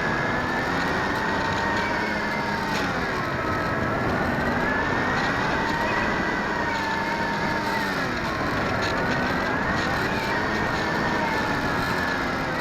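RC Stratos model airplane's motor and propeller whining, the pitch rising and falling slowly every few seconds over a steady rushing hiss of air.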